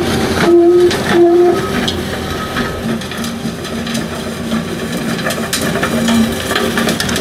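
Skid-steer running under load with a forestry-rotor subsoil mulcher grinding through soil, roots and brush: a loud, steady machine din with a few sharp cracks.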